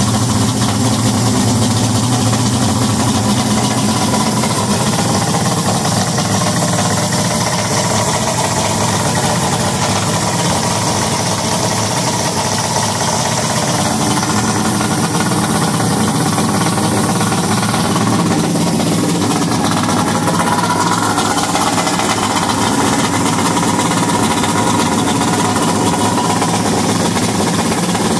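Johnson Ocean Runner 225 V6 two-stroke outboard running steadily with its cowling off, on freshly rebuilt carburetors and a new VRO fuel pump hose. The engine note shifts slightly about two-thirds of the way through.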